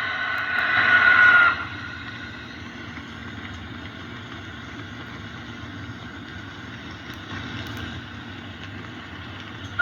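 A recorded shrill, steady drone of the kind the uploader calls a scream from the sky, swelling louder and cutting off abruptly about a second and a half in. A low steady rumble of background noise follows, and a similar shrill tone starts again suddenly right at the end.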